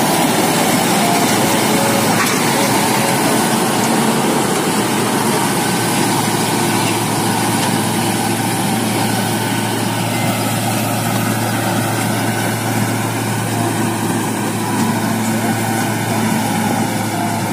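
Farmtrac 6060 tractor's diesel engine running steadily under load, driving a straw reaper through the PTO as it chops wheat stubble and blows the straw into a trailer.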